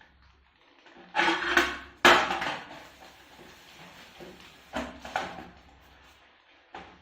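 Dishes clattering as they are handled and set down: a burst of clatter about a second in, a sharp knock at two seconds, then a few lighter knocks.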